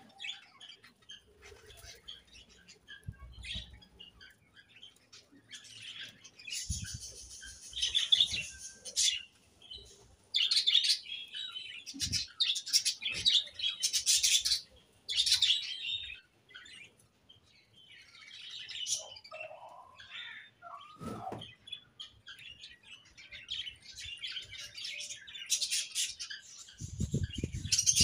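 A flock of budgerigars chirping in an aviary, many short high calls overlapping, busiest from about a quarter of the way in and again near the end, with a few low thumps in between.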